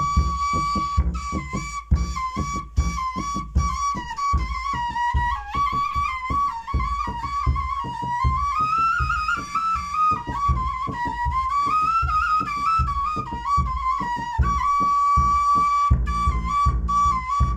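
Kaval (end-blown shepherd's flute) playing a Turkish highland folk tune (yayla havası), a continuous ornamented melody that climbs twice and holds one long note near the end. Under it runs a steady beat of low thumps a few times a second.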